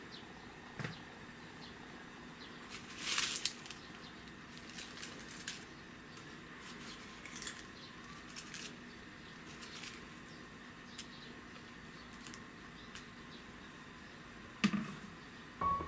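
Cut loquat leaves rustling and crinkling in scattered light bursts as they are handled and dropped from a plastic colander into a pot of water. A single knock near the end.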